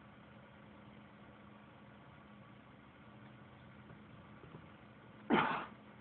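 A single short, sharp sneeze-like burst from a person close to the microphone, near the end, over a faint steady hum.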